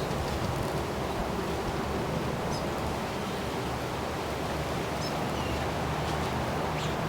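Steady wind rushing, with a few faint, short, high bird chirps.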